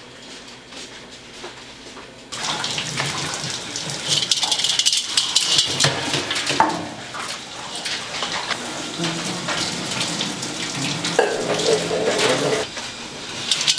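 Water running hard from a tap into a sink, switched on suddenly about two seconds in, with splashing.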